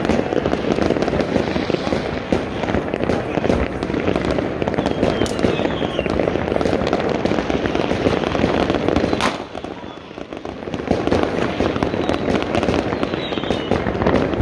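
A dense New Year's Eve barrage of homemade fireworks and firecrackers going off all across the city, many bangs and crackles overlapping into a continuous din. It dips briefly about ten seconds in.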